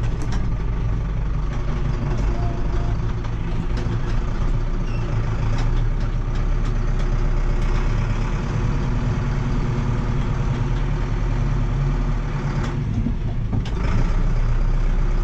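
Tractor engine running steadily, heard from inside the cab, and getting louder near the end.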